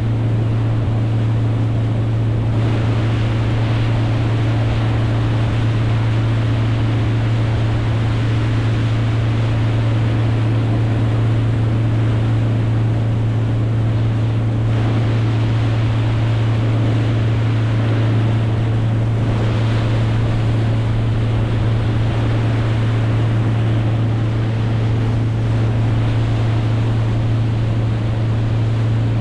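An engine running at a constant speed, giving a steady low hum, over a wash of wind and water noise.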